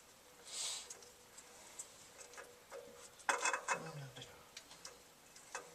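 Faint clicks, taps and scrapes of a spin-on oil filter being worked onto its mounting threads on the engine, with a brief rustle about half a second in and a cluster of louder clicks a bit past halfway.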